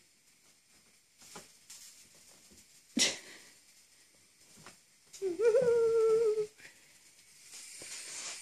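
A sharp thump about three seconds in, then a cat's long, steady call a little past halfway, held at one pitch for over a second.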